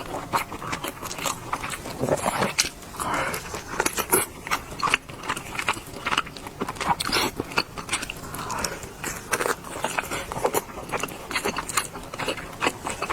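Close-miked wet chewing and lip-smacking of a person eating soft, fatty red-braised pork belly, with many irregular sharp smacks and clicks.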